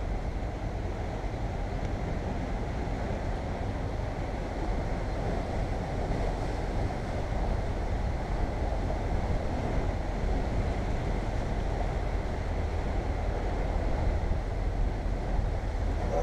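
Steady wind buffeting the microphone over sea waves washing against shore rocks.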